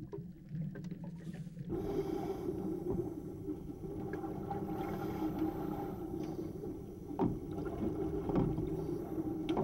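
Scuba divers breathing underwater through their regulators, exhaled air bubbling up in a few short bursts over a steady low hum.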